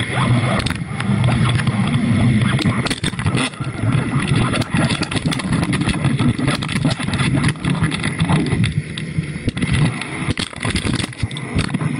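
Muffled underwater rumble and rushing picked up by a GoPro inside its waterproof housing as it hangs on its line, with frequent clicks and knocks against the housing.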